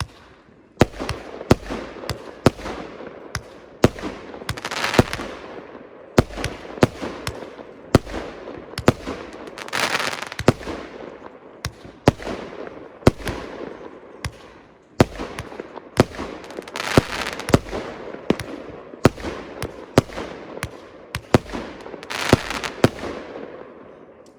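Consumer firework cake (multi-shot battery) firing its tubes in quick succession: a sharp bang every half second to second, with crackling and hissing from the bursting effects between the shots.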